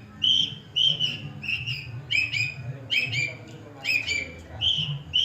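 Long-tailed shrike (cendet) singing: short, high chirps repeated about every half second to a second, alternating between a clear single note and a harsher double note.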